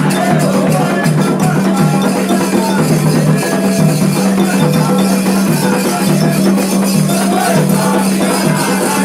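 Candomblé ceremonial music: hand drums beating a steady rhythm with a rattle shaking along, and voices singing over them.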